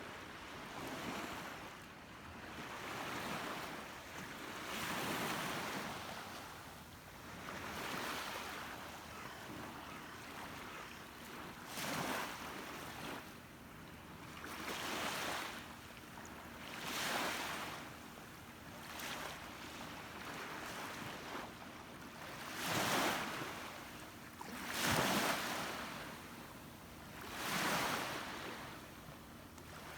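Sea waves washing and splashing, a swell of noise every two to three seconds, the last few louder.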